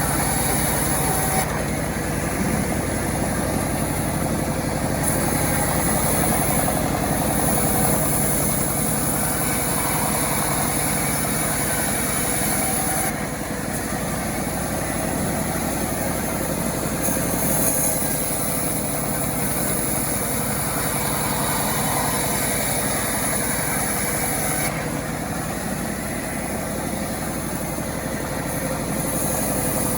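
Engine of a self-assembled chainsaw running steadily, its high-pitched part changing every few seconds.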